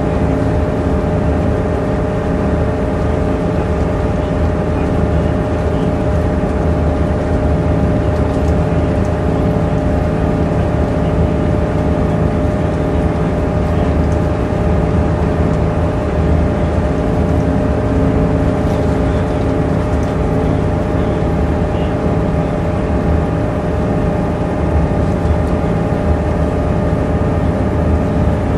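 Volvo Citybus double-decker on the move, its engine and drivetrain running steadily: a constant low drone with a steady whine over it, heard from inside the upper deck.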